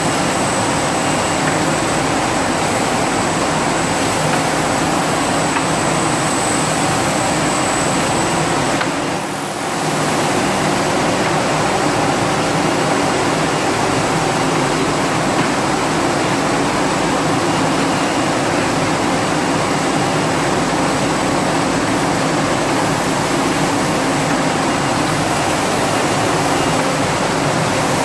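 Steady, loud machinery noise of a glass-bottle frosting production line, an even rushing hum with a faint high-pitched whine over it. It dips briefly about nine seconds in.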